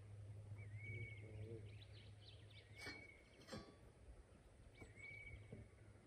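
Faint dawn birdsong in Australian bush: one bird repeats a short whistled note about every two seconds, and other birds chirp briefly in the middle, over a low steady hum.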